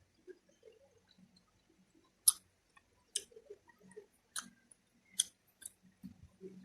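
A person chewing food close to the microphone: soft, wet mouth sounds with about five sharp smacks or crunches in the second half.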